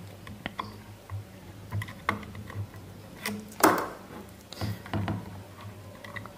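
Handling noise while soldering wires to a circuit board: a handful of light clicks and taps from the soldering iron, solder and wires, one with a brief scrape, over a faint steady low hum.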